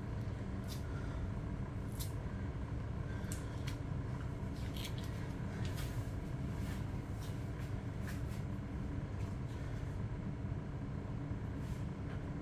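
Steady low hum of a running kitchen appliance, with scattered light clicks and taps from handling frozen broccoli and cheese at the air fryer.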